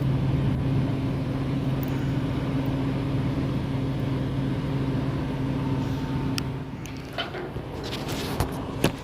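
A steady machine hum, low and even, that stops about two-thirds of the way through, followed by a few light clicks and knocks.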